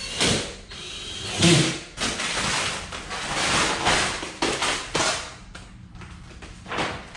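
Rustling and crinkling of a large sheet of vinyl wrap film being handled and pulled over a car bumper, in irregular bursts with a louder knock about one and a half seconds in; quieter after about five seconds.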